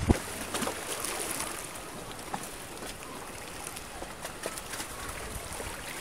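Small waves lapping and splashing against the shore and moored boats, with scattered little splashes and ticks. A single sharp knock sounds right at the start.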